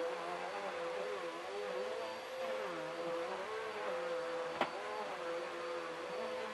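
Bissell PowerLifter Rewind bagless upright vacuum running steadily, a constant motor whine with lower tones wavering up and down. A single sharp click about two-thirds of the way in.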